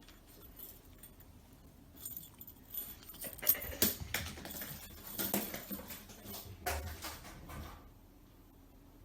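A cat chasing and fetching a ball: a run of irregular knocks, clatters and scrabbling over about six seconds, loudest near the middle, with a light jangling.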